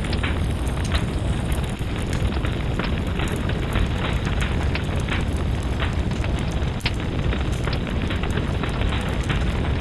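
Wood fire in a fireplace crackling, with many irregular sharp pops over a steady low rumble.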